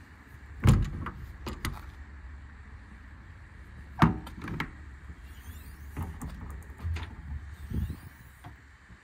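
Steel compartment doors of an IMT Dominator service truck body being unlatched and swung: paddle latches clack and the doors knock, with two loud knocks about a second in and about four seconds in, and several lighter clacks after each.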